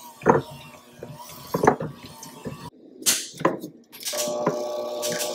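Electric hand mixer beating chocolate frosting in a glass bowl: a few short clatters in the first seconds, then from about four seconds in the mixer's motor runs steadily with a whine at fixed pitches.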